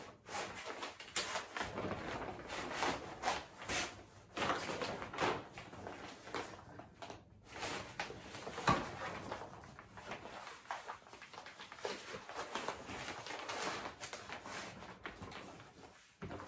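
Fabric bed of an ultralight camping cot rustling and swishing as it is shaken out and handled, with one sharper knock about halfway through.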